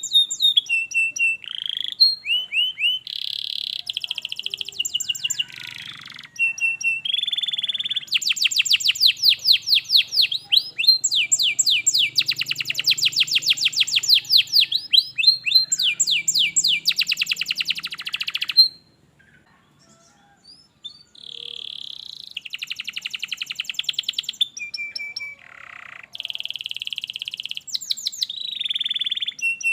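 Domestic canary singing: a long run of rapid trills, each a fast string of repeated down-sweeping notes, changing from one trill to the next, with a short pause about two-thirds of the way through.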